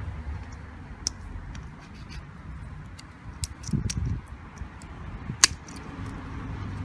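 Pliers clicking and snapping against a plastic wiring connector block: a handful of short sharp clicks, the loudest about five and a half seconds in, over a low steady rumble.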